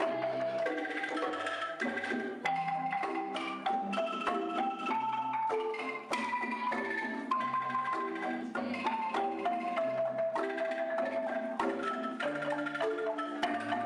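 Background music played on marimba or xylophone-like mallet percussion: a bright, bouncy melody of short plucky notes over a bass line and light percussion.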